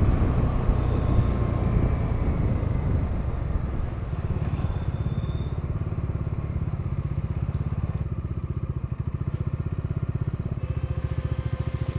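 Bajaj Dominar's single-cylinder engine running as the motorcycle slows and rolls to a stop. About four seconds in it settles into an even low-rev pulsing near idle.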